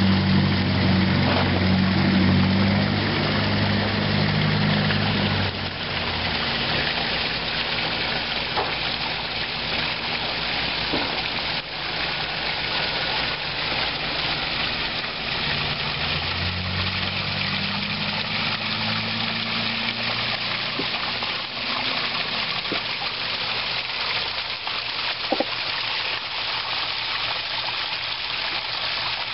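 Koi pond water splashing steadily as it falls and runs over rocks. A low hum sounds over it in the first five seconds and again from about sixteen to twenty-one seconds in.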